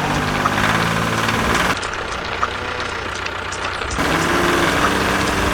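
Tractor engine running steadily. Its sound shifts abruptly about two seconds in and again about four seconds in.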